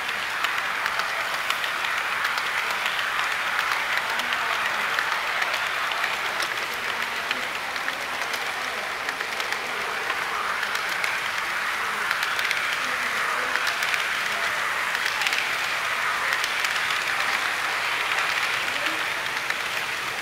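HO scale freight cars rolling past on model track: a steady rushing of small metal wheels on the rails, full of fine rapid clicks.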